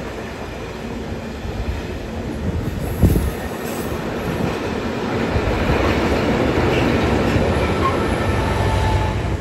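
A long engineering train of yellow track-maintenance vehicles passing close by at speed, with steady rumbling wheel-on-rail noise. A single sharp bang comes about three seconds in, and the noise grows louder in the second half as the last vehicles and a locomotive go by.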